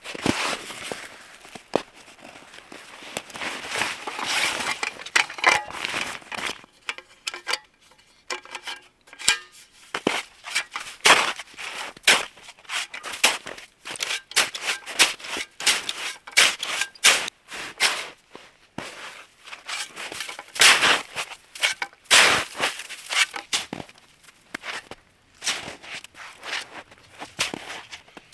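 Footsteps crunching through snow, a run of irregular sharp crunches, with a quieter pause about a third of the way in.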